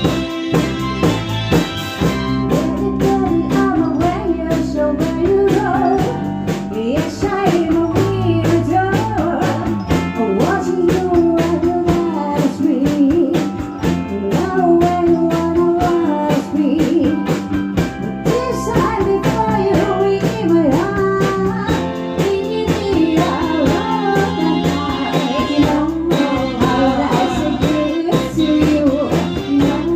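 A female singer singing live with a band of guitar and drums, her voice coming in about two seconds in over the steady backing.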